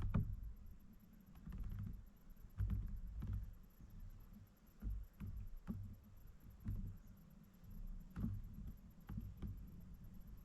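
Irregular low thumps and light knocks on a fishing boat, roughly one a second: water slapping the hull and gear bumping in the boat.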